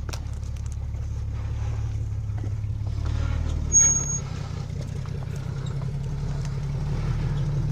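Off-road vehicle's engine running steadily at low revs, with a brief high-pitched squeak about four seconds in.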